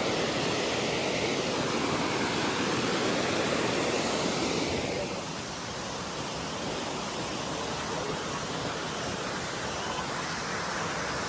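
Steady rush of a waterfall, an even wash of falling water that eases slightly about halfway through.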